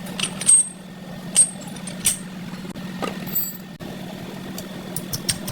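Metal parts and tools clinking and tapping during gearbox work: a few sharp ringing clinks in the first two seconds, then lighter quick ticks near the end, over a steady low hum.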